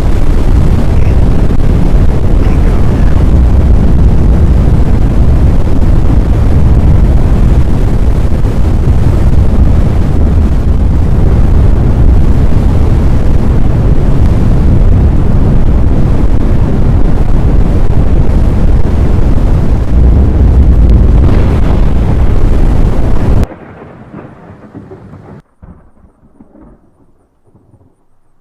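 Loud, steady storm wind rushing over the microphone with a deep rumble, during a tornado-producing storm; it starts suddenly and cuts off about 23 seconds in, leaving a much quieter, patchy sound.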